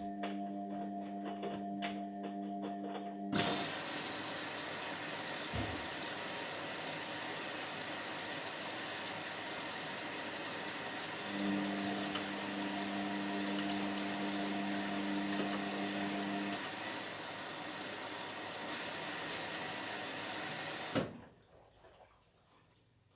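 Indesit washing machine filling with water: a steady rush of water through the inlet starts a few seconds in and cuts off suddenly shortly before the end as the fill valve shuts. A steady hum is heard at the start and again in the middle.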